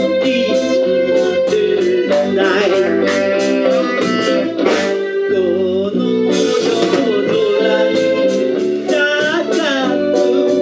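A live band playing a song: a singer's voice over electric bass, keyboard and drums, with steady cymbal and drum hits keeping the beat.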